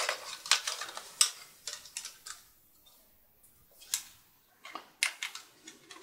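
A hard drive being pushed and snapped into a plastic drive caddy: scattered clicks, knocks and plastic rattles, with a short quiet pause in the middle.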